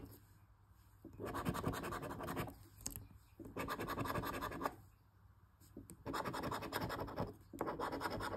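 Scratch-off lottery ticket being scratched in four separate runs of rapid scratching, with short pauses between them.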